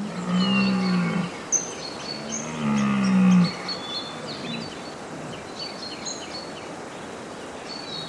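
Red deer stag roaring, its rutting call: two long, low bellows in the first half. Birds chirp in the background throughout.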